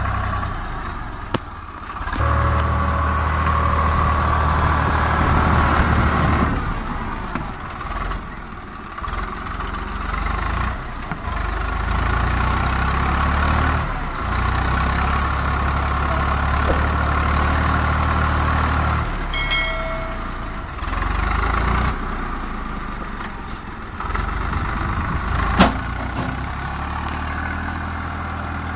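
Swaraj 744 FE tractor's three-cylinder diesel engine running under load as the tractor struggles bogged down in mud, its note changing in level and pitch several times. A brief higher tone sounds about two-thirds of the way through, and a single sharp knock comes near the end.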